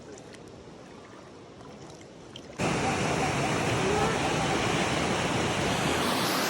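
Quiet outdoor background, then about two and a half seconds in a sudden switch to a loud, steady rush of running water, like a stream or small waterfall close by.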